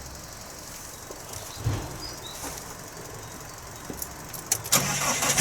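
A low thump and a few clicks, then near the end the Fiat Ducato motorhome's diesel engine cranks and fires, starting on a battery charged through jump leads.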